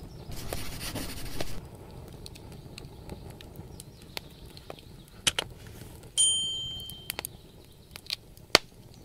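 Subscribe-button animation sound effects: a short hiss in the first second or so, a pair of sharp clicks a little past the middle, then a bright bell ding that fades over about a second, followed by a few more clicks.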